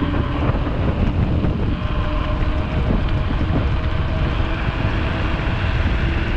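Wind buffeting the microphone over the rumble and rattle of a 29er Haibike hardtail mountain bike rolling fast over rough, jolting ground.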